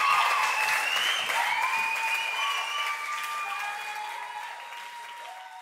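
Audience applauding and cheering, with a few held whoops over the clapping, fading out steadily.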